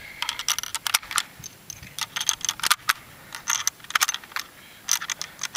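Mosin-Nagant M91/30 rifle being loaded by hand: an irregular series of sharp metallic clicks and clacks as 7.62×54mmR cartridges are pushed into the magazine and the action is handled.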